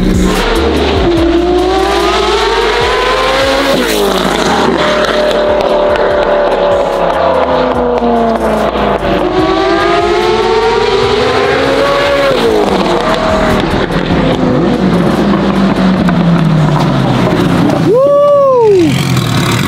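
Ferrari F40's twin-turbo V8 through its custom titanium exhaust, accelerating hard with the note climbing and dropping sharply at two gear changes, then falling away as it slows, with a quick sharp rev blip near the end.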